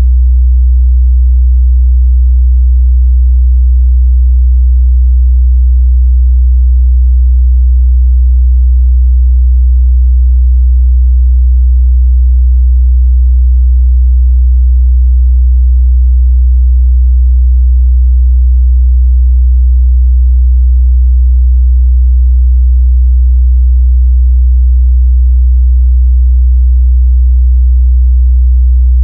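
Steady, unbroken 62 Hz sine-wave test tone: a single low bass hum at constant loudness, used to check mid-bass response of speakers and headphones.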